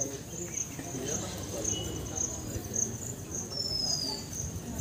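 Insect chirping steadily, a high pulsing trill repeating about twice a second.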